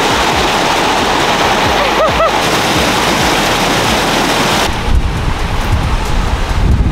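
Mountain stream rushing over rocks in a small cascade, a steady loud water noise, with a brief double chirp about two seconds in. About two-thirds of the way through it cuts off, giving way to low rumbling noise.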